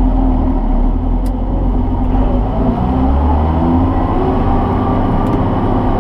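John Deere 7600 tractor's diesel engine running steadily under load, heard from inside the cab while it powers a Rhino 4155 batwing rotary mower chopping corn stalks. The engine pitch rises slightly about two seconds in, then holds steady.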